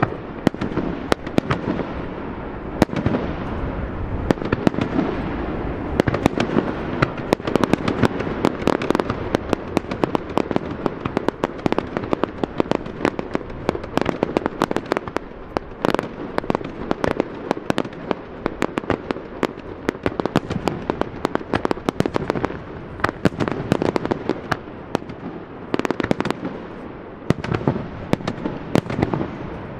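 Fireworks display: a dense, unbroken barrage of sharp bangs and crackles over a steady rumble of booms.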